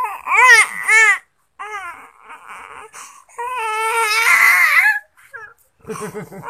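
A baby crying in a series of high, rising-and-falling wails: two short cries in the first second, more over the next two seconds, then one long cry lasting about a second and a half, and another starting near the end.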